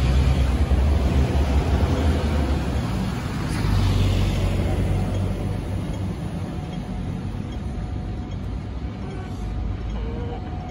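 Road traffic: a heavy vehicle's low rumble passes in the first few seconds, a second vehicle passes about four seconds in, then a steadier, fading traffic hum.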